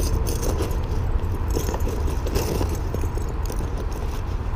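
Small metal fishing rigs with snap swivels jingling and clicking as they are handled and tucked into a sling bag pocket, over a steady low rumble.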